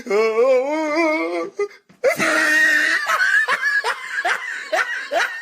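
A meme sound-effect clip of a person's voice: a long wavering vocal note lasting about a second and a half, then, after a short break, loud laughter in a run of short rising bursts.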